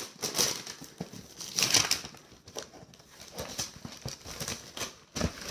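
Gift wrapping and packaging being handled and opened: irregular rustling and crinkling in short bursts, with a soft knock near the end.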